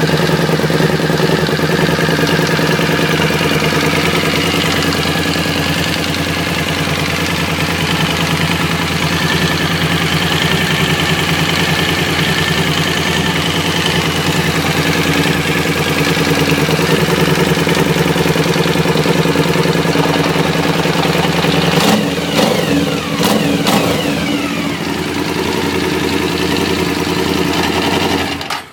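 Suzuki V-Strom motorcycle engine idling with a steady knocking rumble, which the owner takes for worn (spun) crankshaft bearing shells. About three-quarters of the way through there are a few sharp clicks and a brief shift in pitch before the steady idle resumes.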